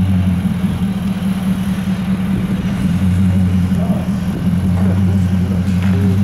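Infiniti QX80's 5.6-litre V8 idling steadily through a tuned exhaust system, a low, even drone with no revving.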